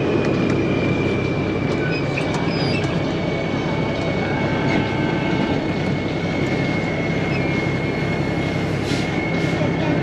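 Heavy diesel farm machinery running steadily under load: a deep engine drone with a thin high whine that drifts slightly down in pitch.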